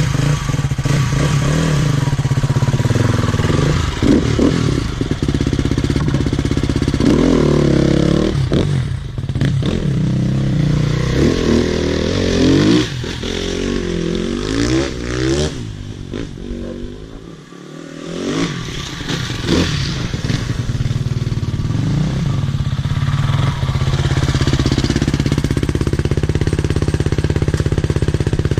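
Husqvarna TE250 enduro motorcycle engine running, its pitch rising and falling again and again as the throttle is opened and closed. The engine note drops away briefly about seventeen seconds in, then picks up again.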